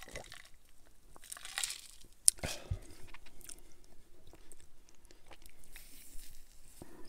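Close-miked mouth sounds of eating and drinking: a swallow after a drink, a sharp knock about two seconds in as the glass is set down on the table, then small wet smacks and clicks as a finger is licked.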